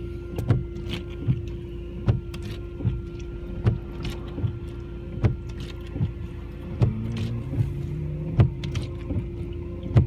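Car windscreen washer pump whining steadily while the wipers sweep, heard from inside the cabin, with a knock about every 0.8 s as the wiper arms reverse. The washer reservoir is being run dry to flush out stale, foul-smelling fluid.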